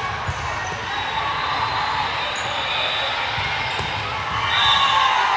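Indoor volleyball rally: the ball thumps as it is passed and spiked, and players call out on the court. The voices get louder near the end as the point is won.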